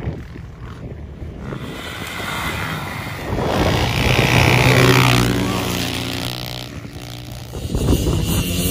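Two dirt bike engines at speed, growing louder as they approach, loudest about halfway through, then dropping in pitch and fading as they pass and ride away. Near the end another bike's engine starts to come in.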